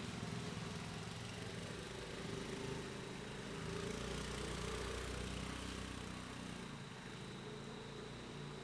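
A vehicle engine running low, growing louder about four seconds in and easing off toward the end, over a steady high-pitched trill of chirping crickets.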